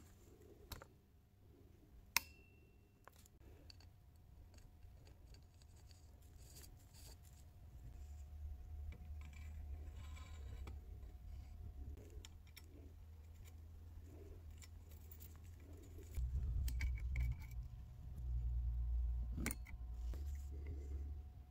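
Small metallic clicks and taps of needle-nose pliers and the blowtorch's metal parts being handled and fitted together, with one sharp click about two seconds in. A low rumble comes in from about the middle and is loudest near the end.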